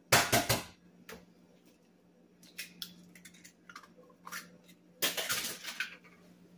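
Eggs cracked against a ceramic mixing bowl and the shells pulled apart: sharp knocks and crackling shell, loudest just after the start and again about five seconds in, with lighter clicks between. A faint steady low hum runs underneath.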